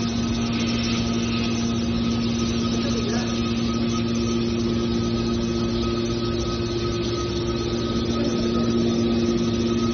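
Hydraulic power unit of a scrap metal baler running with a steady hum while its press rams move, growing a little louder near the end.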